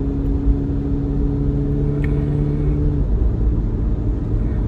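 Car interior noise on the move: a steady low rumble of engine and road, with a steady engine drone that drops away about three seconds in.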